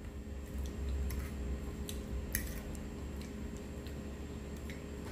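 Metal fork clicking and scraping against a plate while scooping chicken pot pie: a few light, scattered clicks, the sharpest about two and a half seconds in, over a low steady hum.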